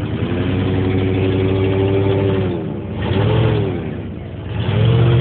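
Ford F-series pickup truck's engine revving in repeated pulls: one rev held for about two seconds, a short blip around three seconds in, then revving up again near the end.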